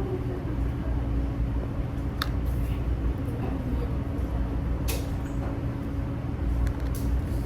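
Crab leg shells cracking, three short sharp cracks about two, five and seven seconds in, over a steady low hum.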